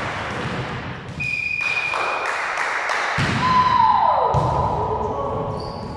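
Volleyball being played in an echoing gym hall: ball hits with thuds and taps, overlaid by a high steady tone about a second in and a longer, lower steady tone from about midway.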